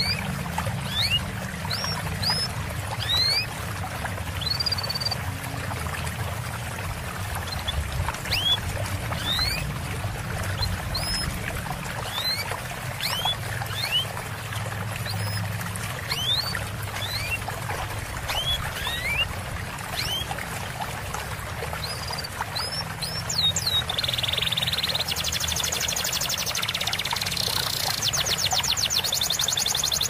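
Small songbirds giving short upslurred chirps, roughly one or two a second, over a steady trickle of running water. Near the end a high buzzing trill of rapid notes comes in.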